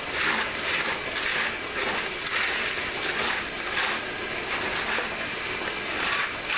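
Chocolate-coated rice Chex cereal being stirred and folded in a plastic bowl: dry rustling and scraping in repeated strokes, over a steady high hiss.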